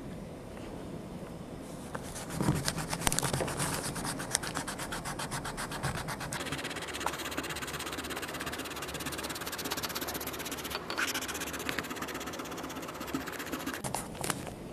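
Pencil scratching and rubbing fast on notebook paper close to the microphone, a dense run of rapid strokes with a few sharper taps, starting about two seconds in and stopping just before the end.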